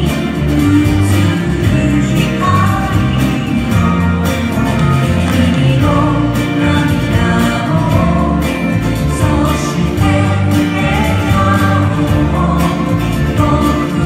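Background music: a song with a singing voice over steady instrumental accompaniment.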